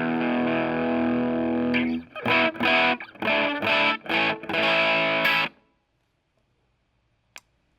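Distorted electric guitar played through a Marshall Master Reverb 30 amp: a held chord ringing out, then a run of short, choppy chords that stop about five and a half seconds in. A faint click follows near the end.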